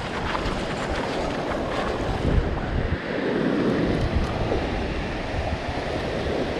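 Ocean surf washing up the beach, with wind buffeting the microphone in low rumbles.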